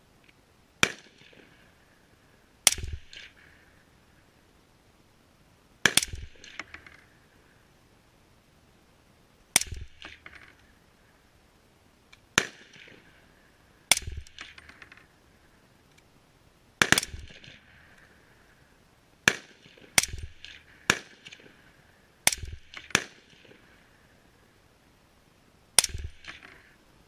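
A .300 Blackout rifle fitted with an AAC suppressor firing about thirteen single shots at uneven intervals, some a second or less apart and others several seconds apart. Each shot is a sharp crack followed by a short echo.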